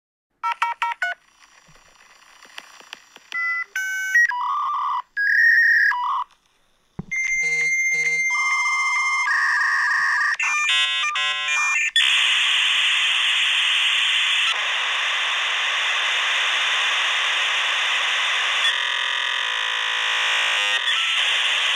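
Electronic beeps and buzzing tones for an animated logo, short and switching abruptly from pitch to pitch, giving way about halfway through to a steady harsh buzzing hiss.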